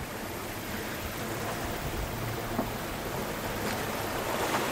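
Steady rush of wind and breaking sea around a small sailboat under sail in choppy open-ocean waves.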